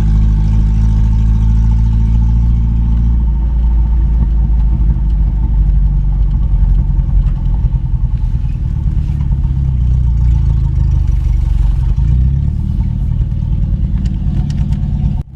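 1982 Datsun wagon's four-cylinder engine running on a test drive, its note changing about three seconds in.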